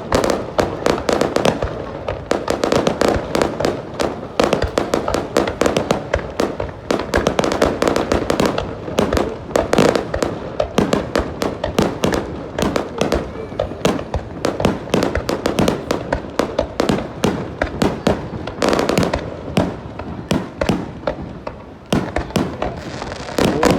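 Fireworks display: a dense, continuous run of rapid bangs and crackling bursts, several a second, with a brief slightly quieter spell about twenty seconds in before it picks up again.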